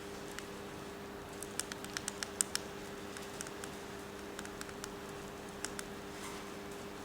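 Small sharp clicks and taps from handling a Goojodoq GSF023 handheld spray fan: a quick flurry about a second and a half in, then scattered single clicks, over a faint steady hum.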